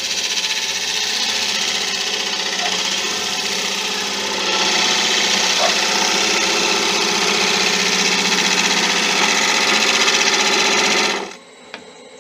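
A bowl gouge cutting into spinning monkey puzzle wood on a Laguna 1836 wood lathe: a steady, loud hiss of the cut over the hum of the running lathe. It grows louder about halfway through, then drops away suddenly near the end.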